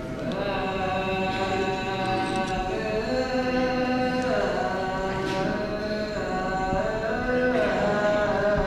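A group of clergy chanting Ge'ez (Ethiopic) liturgical chant together, with long held notes that slide slowly between pitches.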